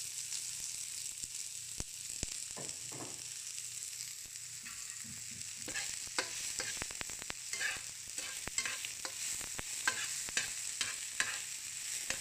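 Chopped onion and garlic sizzling in hot olive oil in a frying pan, a steady high hiss. From about halfway through, a metal spatula stirs them, scraping and clicking against the pan many times.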